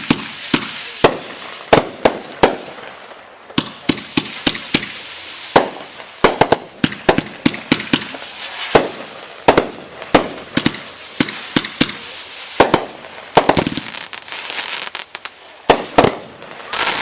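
A 25-shot consumer firework cake, Dominator's 'American Steel', firing: a rapid, uneven string of sharp reports over continuous crackling, the shots ending near the close.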